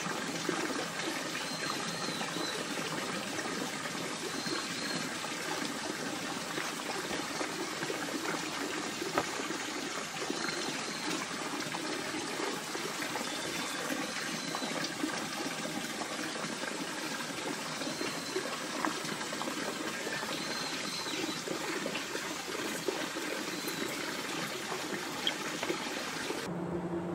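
Steady outdoor background hiss, with a short high chirp repeating about every two seconds.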